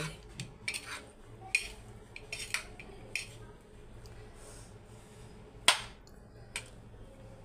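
Metal spoon clinking and scraping against a ceramic plate while mixing a mashed potato and pea filling, in scattered separate taps; the sharpest clink comes about three-quarters of the way through.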